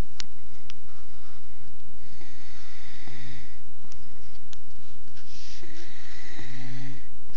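A person snoring in sleep: two breaths about three seconds apart, each a long hiss that ends in a short, low snore.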